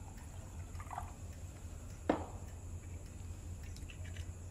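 Glass and small liquor bottle handled, with one short knock about two seconds in and a few fainter small sounds, over a steady low hum.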